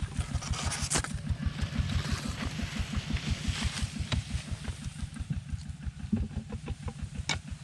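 A small engine running with a steady, fast, even low chugging. Rice leaves rustle against the microphone midway, and a few sharp clicks come through, the strongest near the end.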